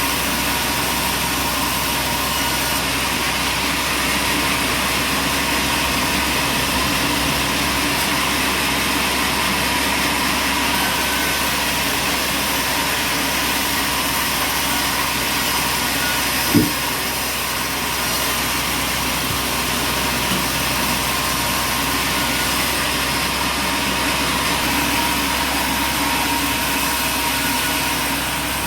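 Sawmill machinery running steadily as a loud, even noise with a faint steady hum, broken once, about halfway through, by a single sharp knock.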